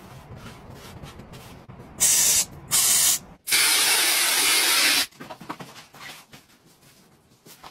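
Spray hissing in three bursts, two short and then one longer of about a second and a half, misting shoes on a shelf. Before them, a faint rubbing of a sponge on a painted door.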